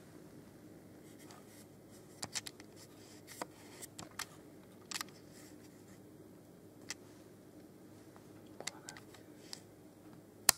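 Scattered small clicks and scrapes of handling over a faint steady room hum, ending with one sharp click near the end.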